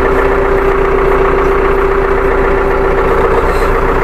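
Deutz-Fahr tractor's diesel engine idling steadily, heard from inside the cab, warming up at idle after a cold start.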